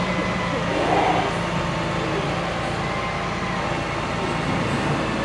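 Rollback tow truck's engine idling steadily.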